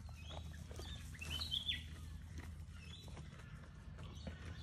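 Birds chirping in short, high calls, the loudest a pair of falling chirps about a second and a half in, over a steady low hum and scattered soft clicks.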